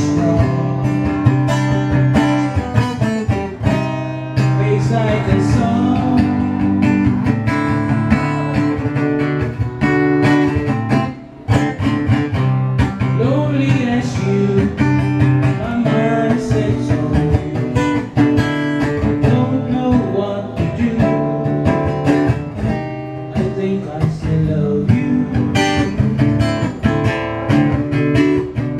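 Acoustic guitar strummed and picked in a live solo performance of a slow song, loud and steady with a brief drop about eleven seconds in.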